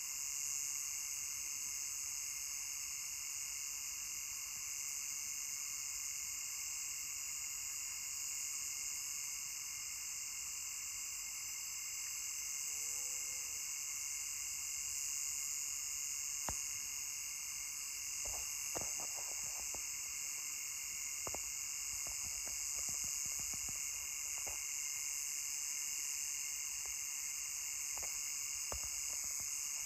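Night chorus of crickets and other insects: a steady, high-pitched trilling in several layers that never lets up. Scattered faint clicks come in during the second half.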